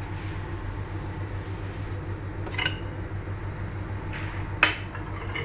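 Steady low hum with two short, light clinks, about two and a half and four and a half seconds in, the second louder.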